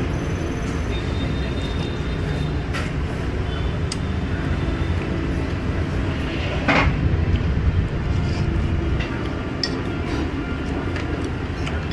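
Steady rumble of street traffic, with light clinks of metal chopsticks and a spoon against a ceramic soup bowl. A louder rush of noise comes about halfway through.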